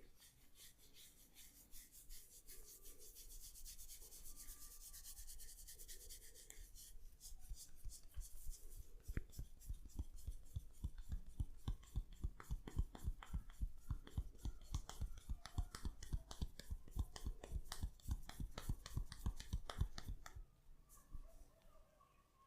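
A barber's hands rubbing briskly through a person's hair and scalp with a dry, scratchy rasp during a head massage. From about seven seconds in, this changes to a fast, rhythmic run of hand strikes on the head, several a second, which stops shortly before the end.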